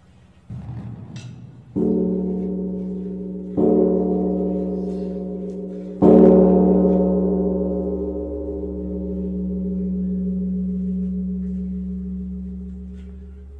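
A resonant metal percussion instrument of the gong or singing-bowl kind, struck three times about two seconds apart. Each stroke rings on with a slow wavering hum, and the third stroke is the loudest.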